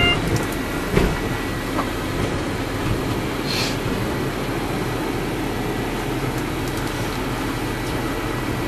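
Steady rumble of a moving ambulance heard from inside the patient compartment. A single knock comes about a second in and a short hiss about three and a half seconds in.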